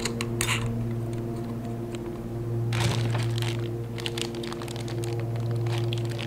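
A small plastic parts bag crinkling as it is handled, in stretches from about the middle to near the end, after a few small metal clicks of a nut and washer being set on the blade. A steady low electrical hum runs underneath.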